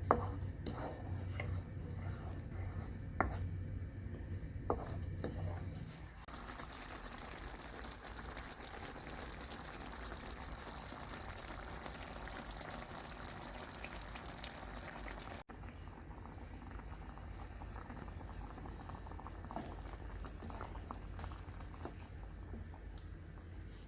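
Meatballs cooking in a pan: a steady hiss from the pan. A few sharp utensil clicks come over a low hum in the first seconds, and the sound cuts abruptly about 15 seconds in.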